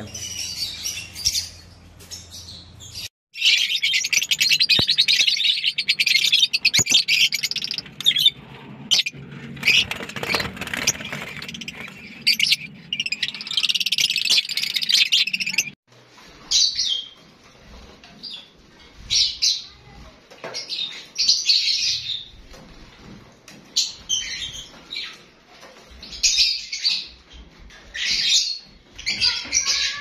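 Caged lovebirds chirping: shrill, dense, unbroken calling from about three seconds in, then from about halfway shorter bursts of high calls with short gaps between them.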